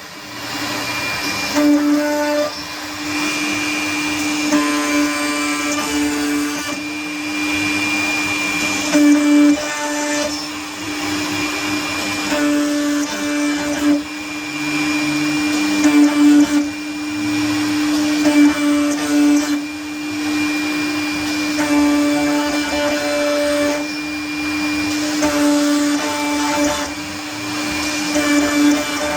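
CNC router cutting MDF: the spindle runs with a steady whine while the stepper-driven axes add tones that change and switch on and off every second or two as the head moves along the cut.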